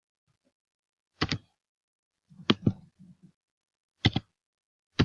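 Computer mouse clicking: about five short, sharp clicks, several of them in quick pairs, a second or so apart.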